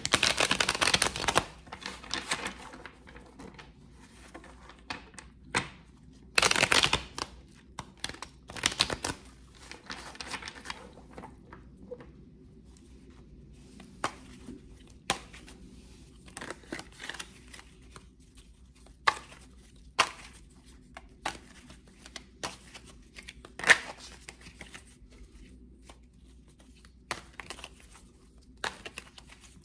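A deck of tarot cards being shuffled by hand: longer rustling bursts at the start and again around six and nine seconds in, then scattered sharp clicks and taps of cards.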